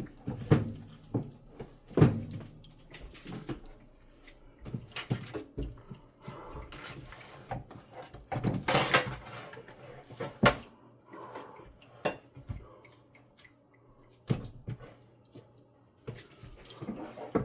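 Irregular knocks and clatter of kitchen cookware being handled, an oven pan and utensils set down and moved, with the loudest clatters about two and nine seconds in.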